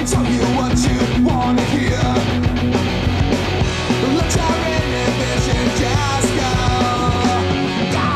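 Loud punk rock music with a driving drum beat.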